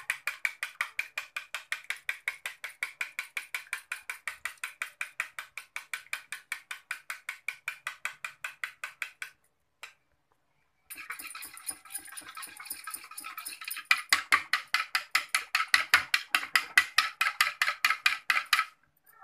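Yogurt being beaten in a glass bowl: a metal spoon clicks against the glass in rapid, even strokes, about six a second. The beating stops for about a second, nine seconds in, then starts again and grows louder, with a wire whisk beating the yogurt near the end.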